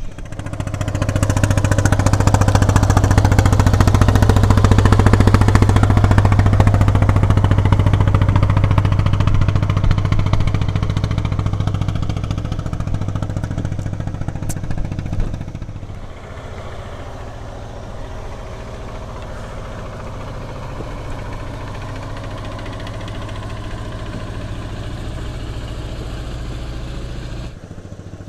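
A small engine running with a steady hum. It is loud for the first half, drops to a lower level about sixteen seconds in, and cuts off shortly before the end.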